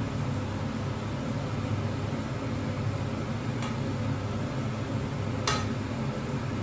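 Omelette frying in a pan on a gas burner, worked with a metal spatula. There are two clicks of the spatula against the pan, a faint one and a sharper, louder one near the end, over a steady low hum.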